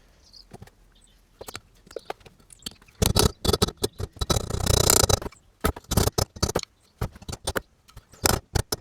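Metal engine parts and tools handled on a workbench: a scraping, rattling stretch from about three to five seconds in, then a run of separate sharp metallic clicks and knocks.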